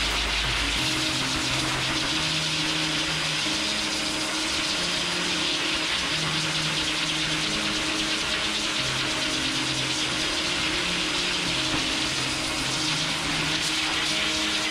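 High-velocity dog grooming dryer blowing a steady, loud rush of air through a dog's thick double coat to blast out loose undercoat.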